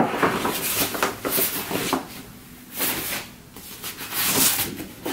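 Large sheets of Somerset printmaking paper rustling and sliding as prints in a stack are lifted and turned over, in several short rustles.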